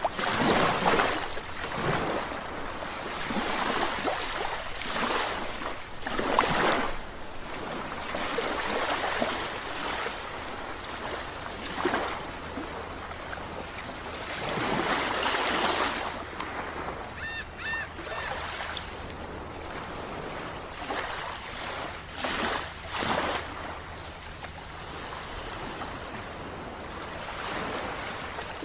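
Sea waves breaking on a beach, the surf swelling and washing back every few seconds.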